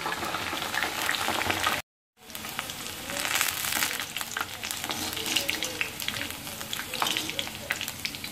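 Sliced ivy gourd deep-frying in hot oil in an iron kadai: a steady sizzling hiss full of sharp crackles and pops. The sound cuts out completely for a moment about two seconds in, then the sizzling resumes as a wire strainer lifts the fried slices out of the oil.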